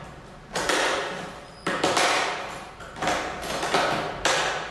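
A black hard plastic equipment case being handled and closed up by hand: about five sharp scraping or clacking sounds roughly a second apart, each fading away quickly.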